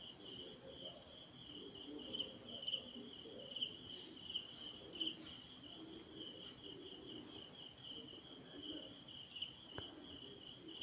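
Faint insects chirping in the background: a steady high-pitched trill with irregular pulsing chirps, over a low indistinct murmur.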